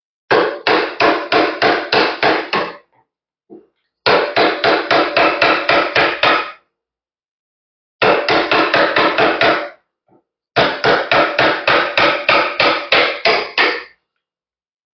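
Mallet driving a wood chisel into wood, hogging away waste on a convex curve: four quick runs of blows, about four strikes a second, with short pauses between runs.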